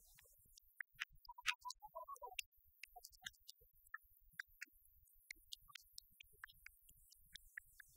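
Near silence broken by faint, irregular clicks and ticks, with a short run of brief high blips about a second in.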